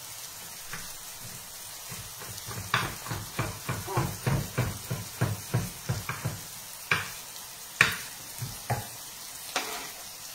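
Kitchen knife chopping fresh parsley on a wooden cutting board: a quick run of chops for about four seconds, then a few single chops. Underneath, a steady sizzle of vegetables frying in a pan.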